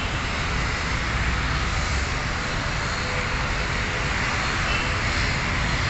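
Jet engines of a SriLankan Airlines twin-engine airliner running steadily as it taxis along the runway, an even rumble and hiss with no change in level.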